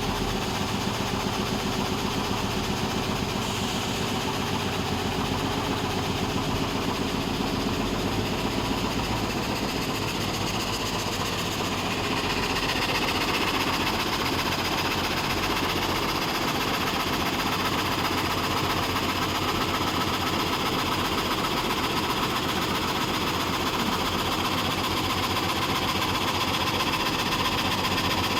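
SanHe 3030 frame saw machine running: a steady, fast-repeating mechanical clatter from the reciprocating saw frame, a little louder and brighter from about the middle on.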